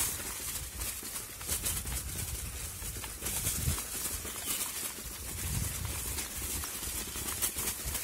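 Mountain bike riding over a rough, muddy forest track: a low rumble from the tyres, with irregular rattles and clicks as the bike goes over bumps.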